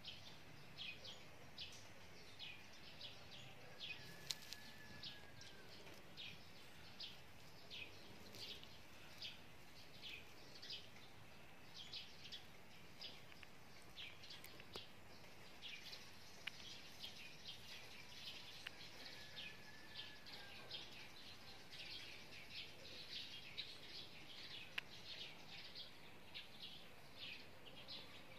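Small birds chirping faintly in short, high chirps, about two a second, with a soft rising-and-falling whistle twice.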